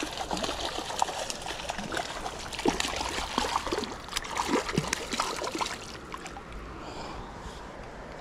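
A hooked trout thrashing at the surface in shallow water, a rapid run of splashes that dies down about six seconds in.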